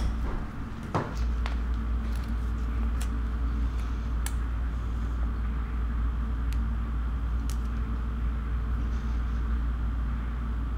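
A steady low rumble with a faint hum, broken by a few light, sharp clicks.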